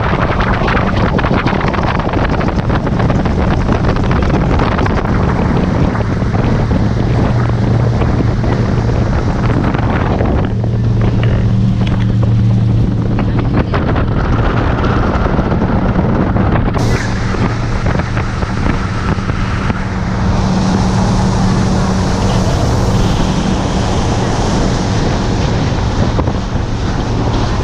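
Speedboat engine running steadily at speed, a constant low hum under heavy wind buffeting the microphone and the rush of water off the hull.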